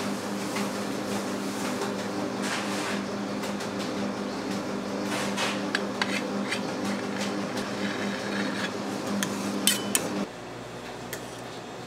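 Metal utensils clinking and scraping against bowls and dishes, over a steady motor hum that cuts off about ten seconds in.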